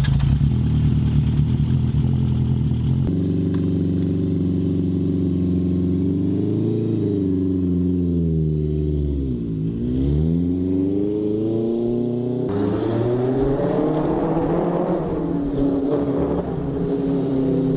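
Honda CB400 motorcycle engine running and being blipped, its pitch dropping and rising several times, in a few short edited takes with abrupt changes about 3 and 12 seconds in.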